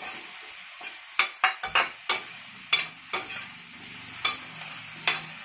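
Potato chunks sizzling in a stainless steel pan while a metal utensil stirs them, clinking and scraping against the pan about eight times over a steady frying hiss.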